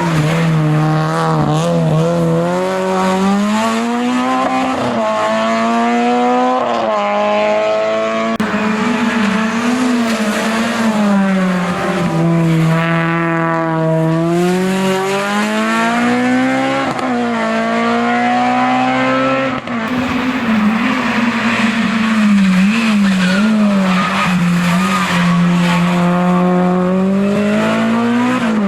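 Hill-climb race car engine run hard throughout, its pitch climbing and dropping again and again as it accelerates, changes gear and slows for bends.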